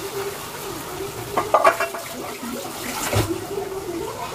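Marinated chicken sizzling in hot ghee in a kadai, with a few sharp metal clinks against the pan about a second and a half in and again about three seconds in.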